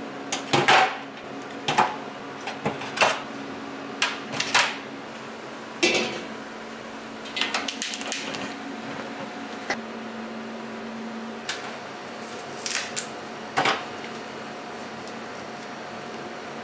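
Kitchen handling sounds: scattered sharp knocks and clatters of a stainless-steel tray and pot being set down and moved, over a steady low hum.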